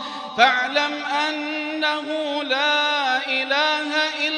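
A man chanting Quran recitation in melodic tajweed style, holding long notes with ornamental pitch turns. There is a short break and a sharp onset about half a second in, then the chant carries on.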